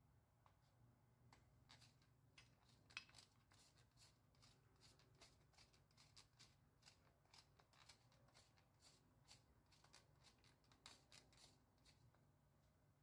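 Pepper grinder being twisted over the salad: a quiet, uneven run of sharp crunching clicks, a few a second, stopping near the end.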